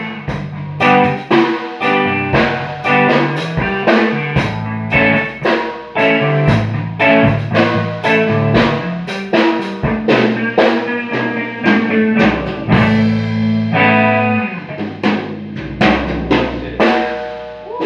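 Improvised jam music with a steady drum-kit beat and guitar.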